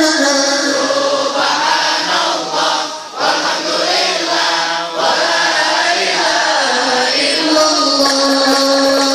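Many voices chanting sholawat, Islamic devotional praise of the Prophet, together in a sustained melody, amplified over a sound system. The singing dips briefly about three seconds in.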